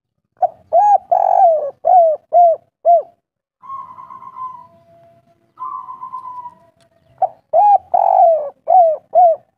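Spotted dove singing two phrases. Each phrase is a short lead-in note, a long falling coo and then three short coos, the 'kuk 3' pattern. Quieter buzzy notes fill the gap between the phrases.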